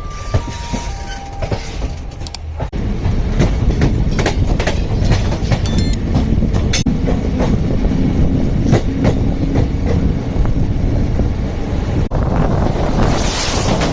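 An Indian Railways train passing on the track, its wheels clattering over the rail joints. After a few quieter seconds of scattered clicks, a loud rumble with rapid, irregular clacks sets in about three seconds in, and a hiss builds near the end.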